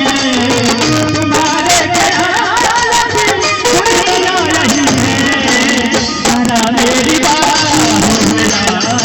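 Indian folk song: a voice singing an ornamented, wavering melody over steady hand-drum percussion.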